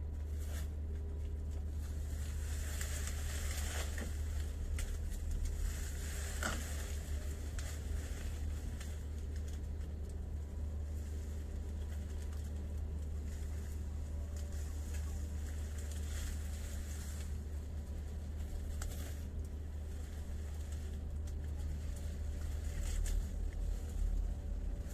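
Intermittent rustling of lychee tree leaves and branches as fruit is picked by hand, over a steady low rumble.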